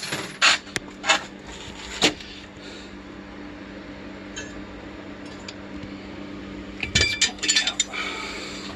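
Small metal and glass items clinking and knocking as junk is handled and set down: a few sharp knocks in the first two seconds, then a burst of clattering near the end. A steady low hum runs underneath.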